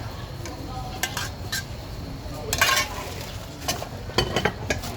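Kitchenware clattering: scattered clinks and knocks of utensils against bowls and pots, with a cluster of quick clinks near the end, over a steady low rumble.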